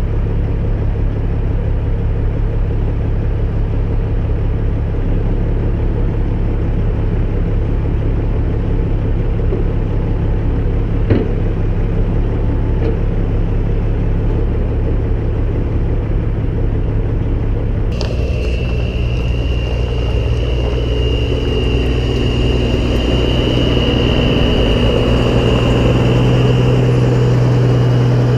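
Heavy diesel engine running with a steady low rumble. About two-thirds of the way through the sound changes suddenly and a steady high whine joins it, while the low hum grows louder near the end.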